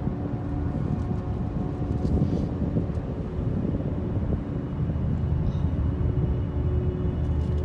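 Road noise inside a moving car's cabin: a steady low rumble of tyres on pavement and the engine running.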